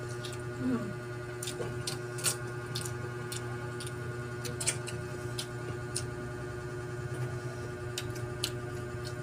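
Eating by hand: irregular small clicks and cracks, about one or two a second, as shrimp and mussel shells are handled and pulled apart, over a steady low hum.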